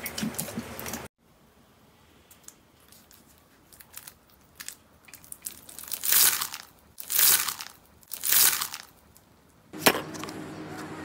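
Foam-bead slime (floam) pressed down by hand three times, each press a loud crunchy crackle of beads, about a second apart, with faint scattered clicks before them.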